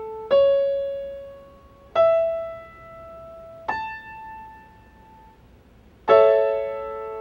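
Piano playing the notes of an A major triad one at a time, rising: C sharp, E, then the octave A, each struck about a second and a half apart and left to ring. Near the end the notes are struck together as a single A major chord that rings on.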